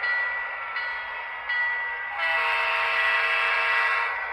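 Onboard sound system of an HO-scale Broadway Limited GP20 diesel model sounding its diesel air horn as the locomotive runs. A louder, fuller horn blast starts about two seconds in and holds to near the end.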